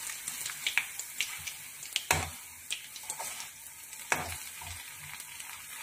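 Battered potato fingers deep-frying in hot oil in a kadai, sizzling steadily, while a metal slotted spoon turns them over and knocks against the pan several times, loudest about two seconds in.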